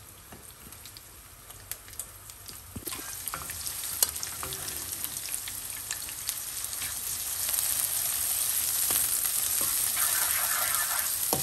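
Sliced onions frying in hot oil in a non-stick wok and stirred with a wooden spoon: a steady sizzle that gets louder about three seconds in and again past the middle, with light taps of the spoon against the pan.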